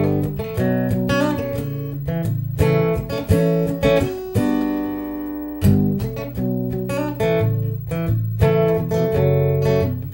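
Solo acoustic guitar, a run of picked and strummed notes, with one chord left to ring for about a second midway before the picking resumes.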